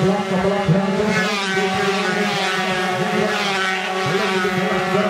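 Several Yamaha RX-King two-stroke single-cylinder race motorcycles accelerating hard, engine pitch rising again and again as they run up through the gears, over a steady low drone.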